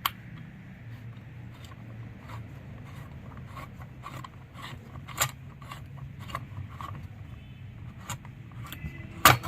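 Small metal chainsaw parts being handled: scattered light clicks, taps and rubbing over a faint low hum, with a sharper clink near the end.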